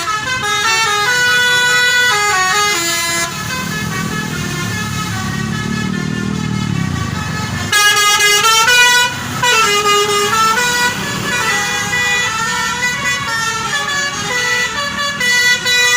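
Indonesian bus 'basuri' musical horns playing melodies in stepping notes, loud and continuous, with tunes overlapping at times. A low rumble swells under them between about three and eight seconds in.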